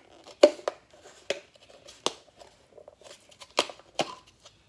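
Small plastic container of pomegranate seeds being handled, giving a string of irregular sharp clicks and crinkles.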